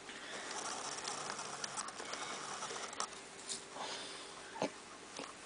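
Two-week-old puppies crawling and shuffling on a fleece blanket: soft rustling and small scratchy pattering with faint squeaky puppy noises, and a single sharper tap near the end.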